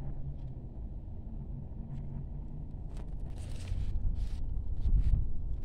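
Outdoor street background: a steady low rumble of distant traffic and wind on the microphone, with a few short rustling noises in the second half.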